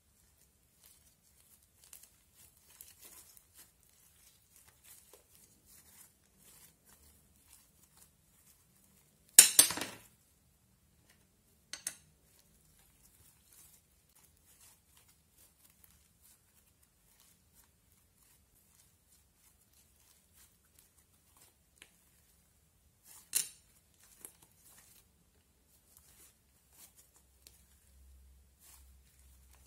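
Thick, grainy cracker slime being kneaded and stretched by hand, giving soft crackles and clicks throughout. A loud crackling pop comes about nine seconds in, a smaller one a couple of seconds later, and another loud one past the twenty-second mark.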